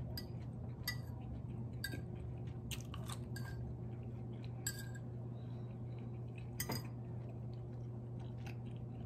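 Metal fork clinking and scraping against a plate while eating, with chewing. The clinks are short and come at irregular intervals, the loudest about two-thirds of the way through, over a steady low hum.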